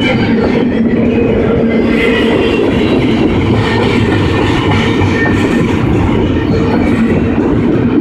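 Freight cars of a long double-stack container train rolling past at speed: steady wheel-on-rail rumble with some clickety-clack and a steady droning tone underneath.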